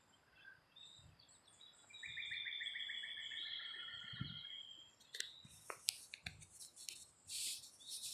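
Faint songbird calls: one even, rapidly pulsed trill lasting about three seconds, followed by scattered high chirps and a few sharp clicks.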